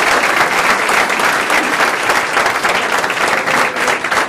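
A room of people applauding: many hands clapping in a dense, steady patter.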